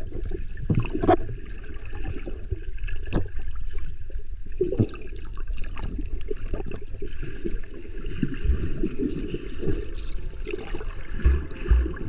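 Underwater sound of shallow surf and water movement picked up by a submerged camera: a continuous muffled low sloshing rumble with scattered sharp clicks and knocks. Near the end, music with a steady beat comes in.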